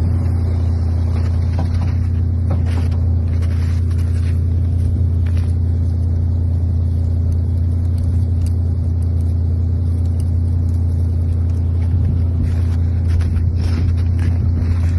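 An engine running steadily, an even low hum with no change in speed, with a few faint knocks or clicks over it.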